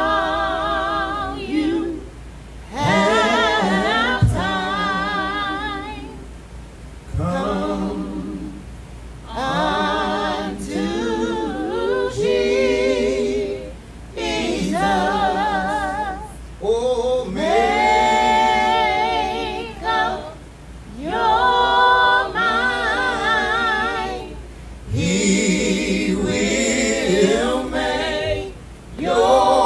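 Unaccompanied singing: a voice with strong vibrato sings long held lines into a microphone, each phrase a few seconds long with short breaks between.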